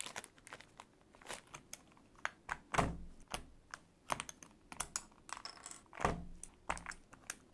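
Keycaps being pulled off an AVAX GM03 Pro mechanical keyboard with a keycap puller: irregular light plastic clicks and snaps, with louder knocks a little before 3 seconds and around 6 seconds.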